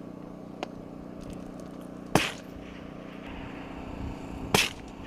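Two sharp gunshots about two and a half seconds apart, each with a short echo, and a fainter crack about half a second in, over a steady low drone.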